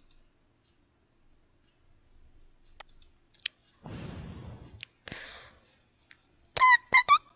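A few sparse mouse clicks and two short soft rustles. Near the end a loud, high, squeaky whistle-like tone breaks in, cut into several short pieces.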